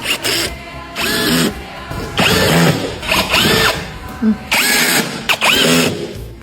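Handheld power tool running in four bursts, its whine rising and falling as it spins up and slows down.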